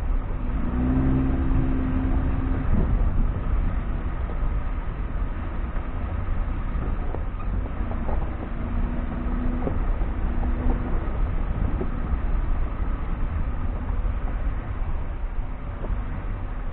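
The T30 vehicle driving off-road: a steady low rumble of engine and tyres on rough ground, with a faint engine note rising above it about a second in and again around eight to eleven seconds in. Scattered short knocks come from the body and load jolting over the track.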